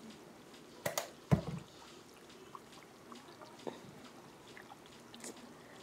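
Spice jar handled over a skillet: two sharp clicks about a second in, then faint light ticks as crushed red pepper flakes are shaken over the chicken.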